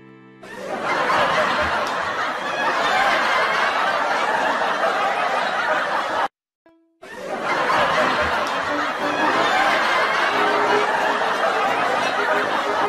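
Canned audience laughter, a dense track of many people laughing, with background music under it. It cuts out briefly twice, near the start and about halfway through, each time picking up again.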